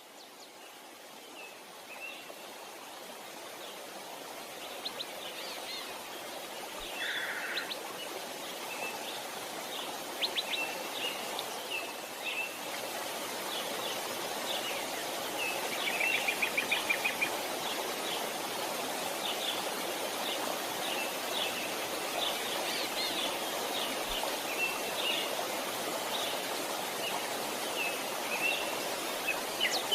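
Several songbirds chirping and trilling over a steady rush of flowing water. The sound fades in over the first several seconds.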